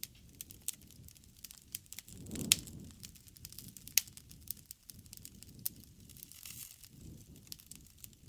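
Wood fire crackling with many small snaps, and two louder pops about two and a half and four seconds in, over a low rumble of burning.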